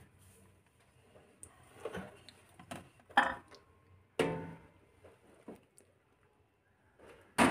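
A few scattered light knocks and clinks of a stainless steel plate being handled, one of them ringing briefly about four seconds in.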